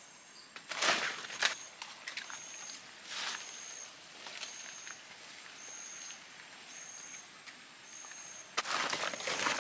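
Footsteps and rustling through dry leaf litter and undergrowth, in short bursts about a second in and near three seconds, and a longer bout near the end. Under it, a short high chirp repeats about once a second.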